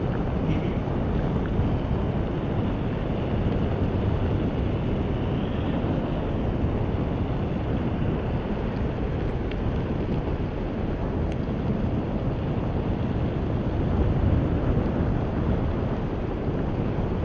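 Wind buffeting the handlebar camera's microphone as a road bike rides at speed, over the steady rumble of the tyres rolling on damp asphalt.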